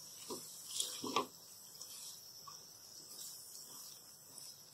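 Spatula stirring chickpeas in a metal pan: a few soft scrapes and knocks, the loudest about a second in, over a faint steady high hiss.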